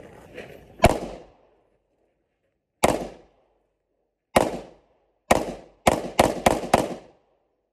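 Pistol shots, eight in all: three single shots a second and a half to two seconds apart, then five in quick succession, about three a second.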